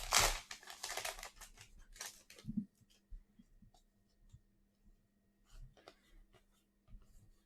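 Trading card pack wrapper being torn open with a burst of crinkling in the first second or so, followed by faint clicks and rustles of cards being handled.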